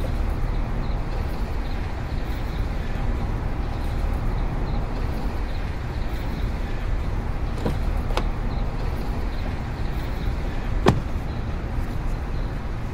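Steady outdoor street and traffic noise, heaviest in the low end. A few sharp clicks come in the second half, the loudest about eleven seconds in.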